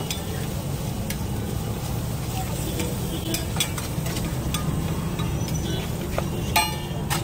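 Food sizzling on a large flat iron griddle, over a steady low rumble, with scattered sharp metallic clicks and one louder ringing clink near the end.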